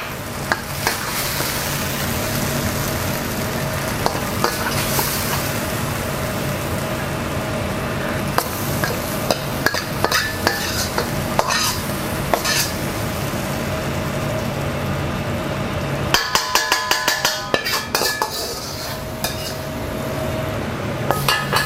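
Fried chicken pieces sizzling in boiling sauce in a hot pan, tossed and stirred with a metal utensil that scrapes and clicks against the pan, over a steady low hum. About sixteen seconds in the hum drops away and a quick run of clicks and scrapes follows.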